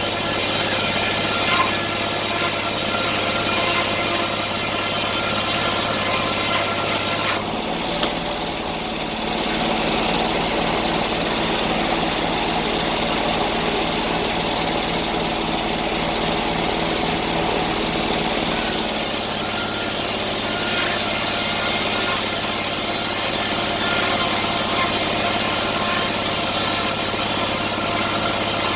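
Sawmill engine running steadily. Its sound changes for about ten seconds, starting about seven seconds in, then returns to the earlier pattern.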